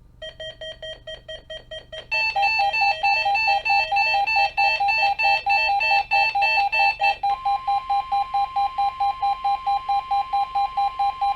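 Weather alert radio receiver sounding its alarm for a weekly NOAA Weather Radio test. It beeps about five times a second, louder and on two alternating notes from about two seconds in. About seven seconds in, the broadcast's steady 1050 Hz warning alarm tone comes on beneath the beeps, and everything cuts off together at the end.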